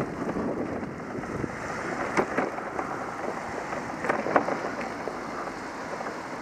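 Wind buffeting the microphone of a camera on a moving bicycle, with steady rolling noise. A few short sharp knocks come in pairs, two about two seconds in and two about four seconds in.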